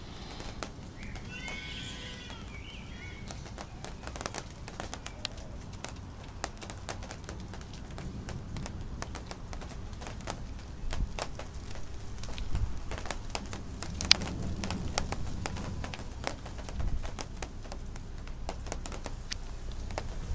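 Thunderstorm ambience: a low rumble that swells and fades, with scattered sharp ticks and crackles throughout. A brief animal call sounds about a second in.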